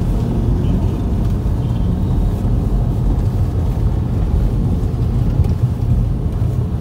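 A moving car's engine and tyre noise: a steady low rumble.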